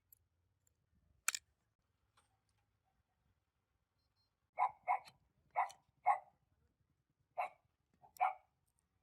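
A dog barking, six short barks in two loose groups over the second half, after a single sharp click about a second in.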